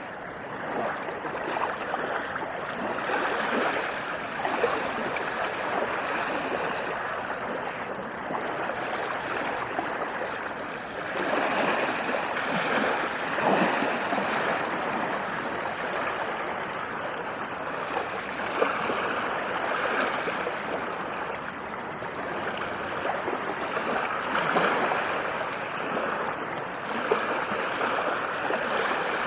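Ocean waves washing in: a continuous rush of water that swells louder every few seconds and eases off again.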